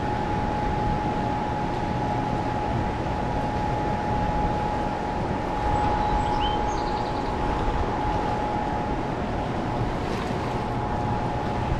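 Steady rush of a river's fast current and rapids below a dam, with a steady hum running through it. A few faint chirps come about halfway through.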